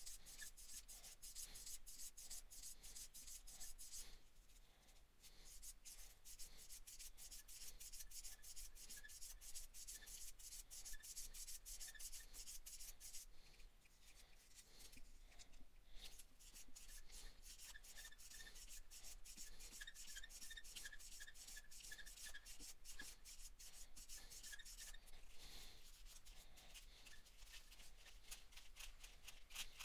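Multi-grit fingernail file buffing a scrape out of a plastic action figure: faint, rapid back-and-forth rubbing strokes, pausing briefly a few times.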